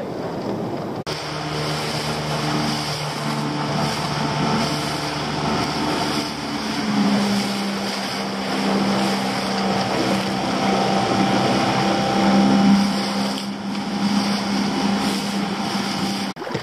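Small outboard motor running steadily, driving a small open boat through the water. About seven seconds in its note rises and gets louder as it speeds up.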